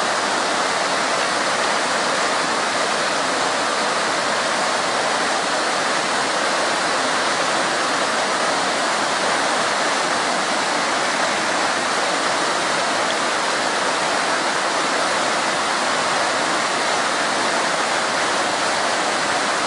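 River in flood, its fast water rushing in a steady, unbroken noise.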